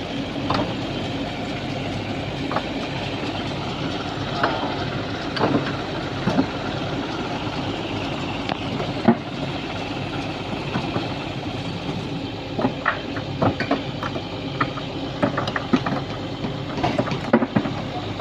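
Sany SY215C excavator's diesel engine running steadily under working load, with scattered knocks and clatters of crushed stone and the steel bucket, coming more often in the second half.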